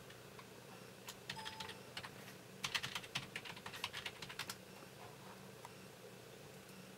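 Typing on a computer keyboard: a few keystrokes about a second in, then a quicker run of keystrokes from about two and a half to four and a half seconds, over a faint steady hum.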